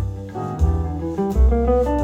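Jazzy instrumental music with a prominent plucked double bass line and light drums, played back through a portable Bluetooth speaker in a sound test.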